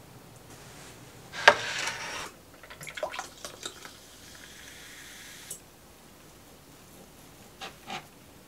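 A sharp click with a brief hiss, then sparkling water poured from a bottle into a glass, trickling and fizzing for a second or two. Near the end come two light clicks of cutlery on a plate.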